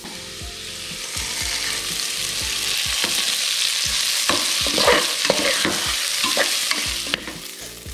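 Washed, still-wet rice sizzling in hot butter in an aluminium pressure cooker as the moisture cooks off, with a metal spoon scraping and clicking against the pot as the rice is stirred.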